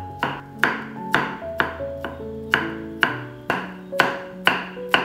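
Chef's knife chopping garlic on a wooden cutting board, sharp strikes about two a second, with background music underneath.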